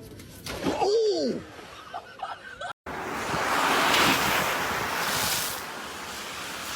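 A person's short, high laugh that rises and falls in pitch. After a brief cut comes a long, breathy wheezing laugh that swells and then fades.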